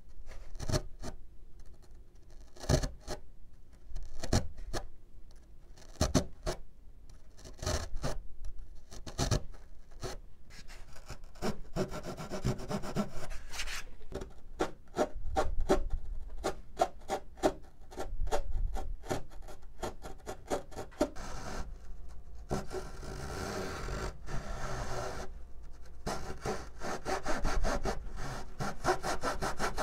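Razor saw cutting through balsa wood in back-and-forth strokes, slow and spaced at first, then quicker and steadier from about a third of the way in, with a couple of short pauses near the end.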